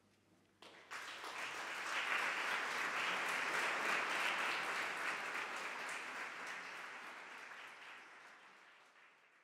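Audience applauding: the clapping breaks out about a second in, swells, then fades away near the end.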